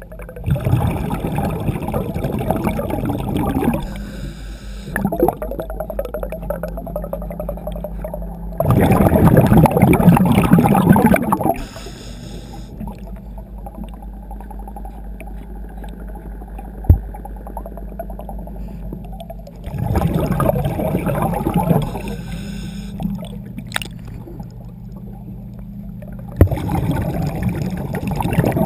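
Scuba diver breathing through a regulator underwater: a short inhale through the regulator, then a long rush of exhaled bubbles, repeating about every eight to ten seconds over a steady low hum. One sharp knock comes about halfway through.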